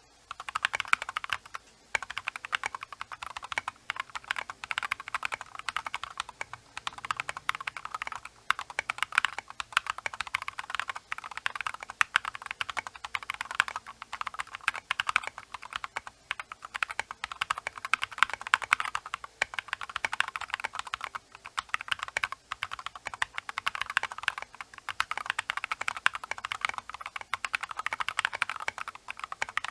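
Continuous typing on a Rakk Lam-Ang Pro mechanical keyboard with Glorious Holy Panda tactile switches lubed with Krytox 205g0 and SA-profile keycaps: a dense, steady run of keystrokes with a couple of short pauses, over a faint microphone hiss.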